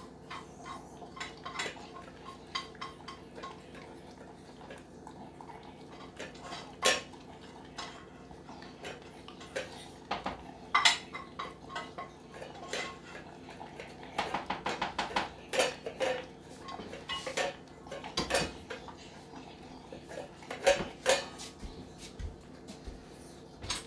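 Dog eating from a stainless steel bowl on the floor: irregular metallic clinks and scrapes against the bowl, now and then in quick runs of clinks.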